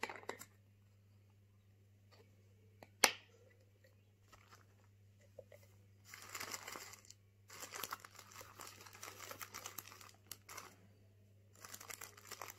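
A homemade plastic cone crinkling and rustling as it is handled, in stretches of a second or a few seconds from about six seconds in. One sharp click about three seconds in.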